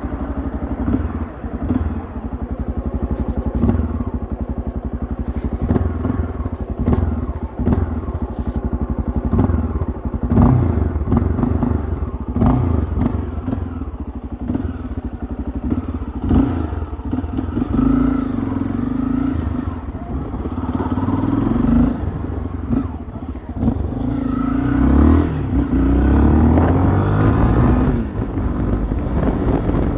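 Honda XRE 300's single-cylinder four-stroke engine running through its stock exhaust, the engine note rising and falling with the throttle, with scattered short knocks.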